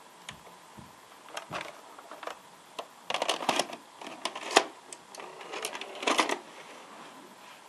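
VHS video recorder's front cassette-loading mechanism (Panasonic NV-810EG type) taking in a tape. Scattered clicks, then bursts of mechanical clatter as the cassette is pushed into the slot and drawn in and seated. The sharpest click comes just past halfway.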